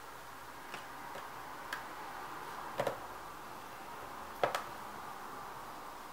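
Small metallic clicks and taps of a screwdriver and tiny screws against a MacBook Pro's aluminium bottom case while the case screws are driven back in: a few sharp ticks, the loudest about three and four and a half seconds in.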